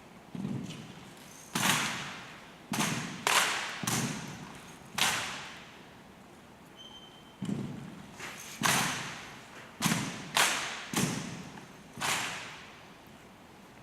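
A rifle drill team handling their rifles in unison: about a dozen sharp slaps and thuds at irregular spacing, each dying away in an echo.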